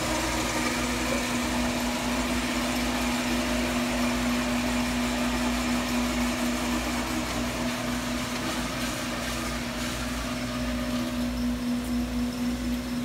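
Large engine lathe running at a steady speed: a constant mechanical hum with one strong unchanging tone over a wide wash of machine noise.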